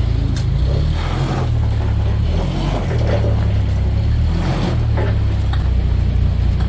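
Heavy truck engine running at low revs, the pitch shifting slightly up and down as it is manoeuvred.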